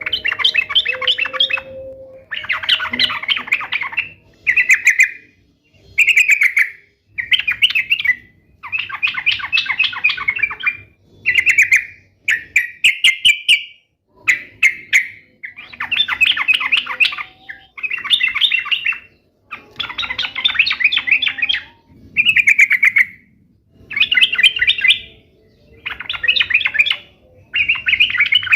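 Yellow-vented bulbul (trucuk) singing: bright, bubbly, chattering phrases, each about a second long, repeated over and over with short pauses between.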